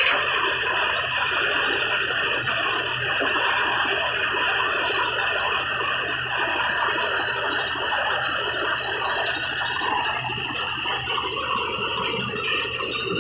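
Concrete mixer machine with material lift running steadily: a low engine drone under a continuous rattle.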